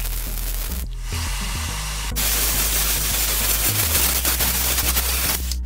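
MIG welder arc crackling and hissing while laying weld into a steel motorcycle frame. It runs in bursts: a brief stop just before a second in, then a longer, louder run from about two seconds that cuts off suddenly near the end. Background music with a bass line plays underneath.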